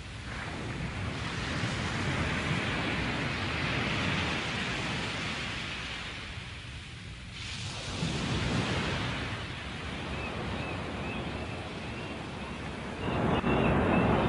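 Ocean surf: a rushing wash of waves that swells and ebbs slowly, rising a few seconds in, dropping away about halfway, then building again.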